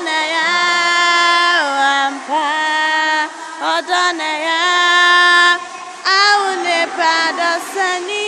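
Female voice singing a slow melody with long held notes of about a second each and short slides between them; the phrases get shorter and move more in the last couple of seconds.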